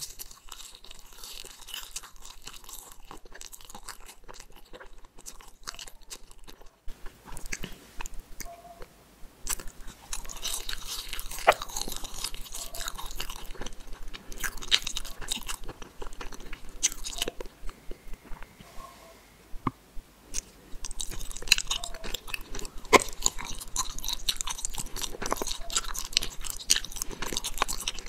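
Close-miked chewing of gummy candies: wet, sticky smacking and squishing with frequent small clicks. It is softer for the first several seconds, gets louder and busier about seven seconds in, eases off briefly past the middle, then picks up again.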